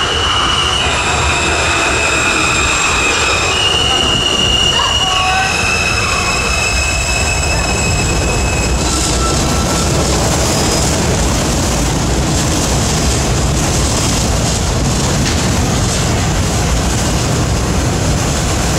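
R160A-2 subway train with Alstom ONIX propulsion braking into the station, its motors whining in steady high tones that step in pitch several times. About nine seconds in the whine stops and the stopped train gives a steady hiss over a low rumble.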